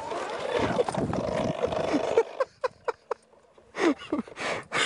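A man grunting and breathing hard with strain, close to the microphone, over a rush of wind noise that cuts off about two seconds in. After that come short, sharp grunts, one falling in pitch near the end.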